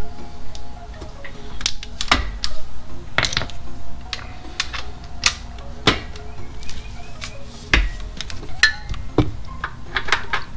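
Metal hand tools clinking and knocking: a socket and digital torque wrench being handled and set onto flywheel bolts, a string of irregular sharp clicks and clanks.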